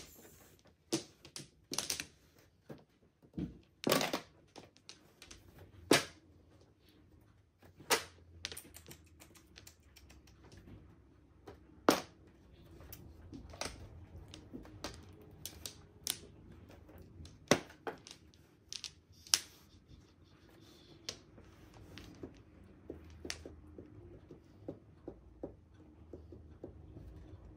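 Mahjong tiles clacking on the table as players draw and discard, sharp single clicks at an uneven pace, about one every second or two.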